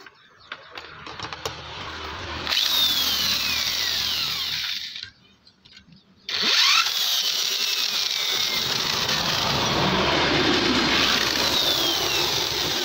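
Electric hand drill running against the metal chassis of an amplifier, in two runs: about two and a half seconds, a pause of over a second, then about six seconds. Its whine falls in pitch now and then as the bit bites.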